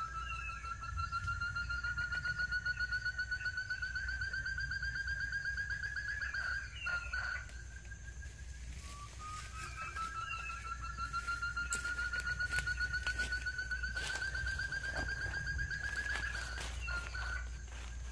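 A bird calling twice: a long, fast pulsed trill that rises slowly in pitch for about six seconds, then breaks off into a few short notes. The second trill begins about halfway through, and faint clicks and knocks come around the breaks.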